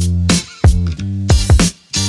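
Background music: a funky track with a steady drum beat and a bass line.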